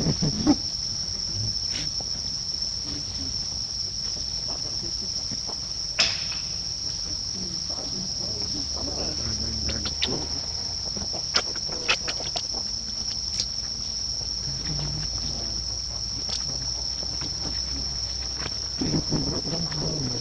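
Steady high-pitched drone of insects, unbroken throughout, with several sharp clicks scattered through it, the loudest about six seconds in.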